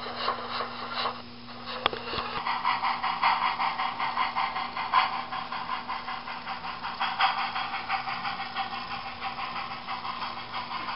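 Model steam locomotive running on a layout, with a rapid, even pulsing over a steady low hum. A single click about two seconds in.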